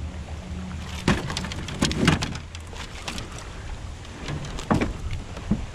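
A handful of scattered knocks and clunks against a small aluminum jon boat while the bass is handled in the landing net, over a low steady rumble.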